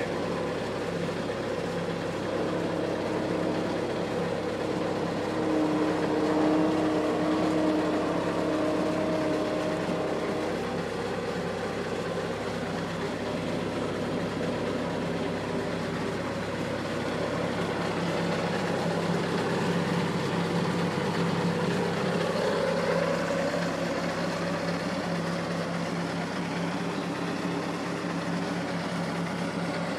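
Argo amphibious ATV's engine running while it drives on its tracks. The engine note rises and falls a little, swelling briefly a few seconds in and again about two-thirds of the way through.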